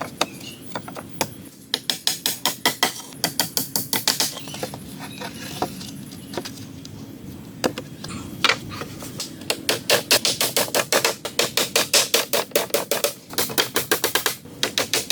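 Rapid, regular tapping of a hand tool on wood, about six strikes a second, in runs broken by short pauses.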